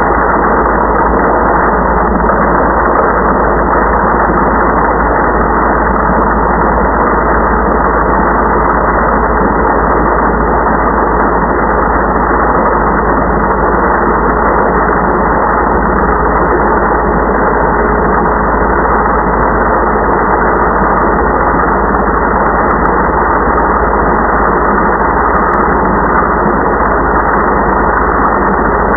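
Electric blade coffee grinder running, its motor and blade whirling the beans into grounds: a steady, unbroken whir with no high end and a faint steady hum in it.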